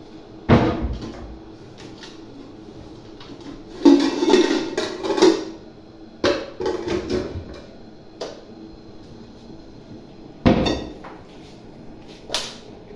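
Metal pots and pans clanking against each other as they are shifted and pulled out of a kitchen cabinet, with cabinet-door knocks. The clatters come in five or so separate bursts.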